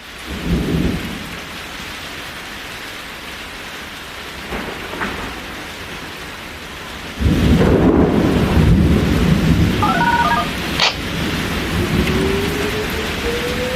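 Thunderstorm ambience: steady rain with rumbling thunder, the thunder swelling into a loud, sustained roll about halfway through. Near the end a synthesized tornado siren starts winding up, its pitch rising slowly.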